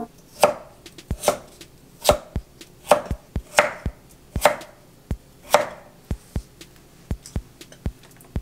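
A vegetable knife chops peeled raw sweet potato into chunks on an end-grain wooden cutting board. There are about seven sharp knocks of the blade striking the board, a little under a second apart, then lighter, quicker knocks near the end.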